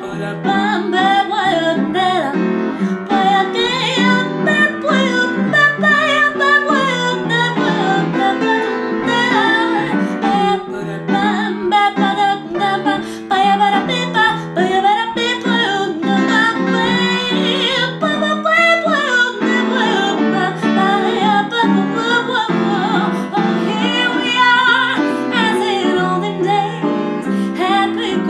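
A woman singing a slow jazz ballad with an upright piano accompanying her, her voice gliding and wavering over sustained piano chords.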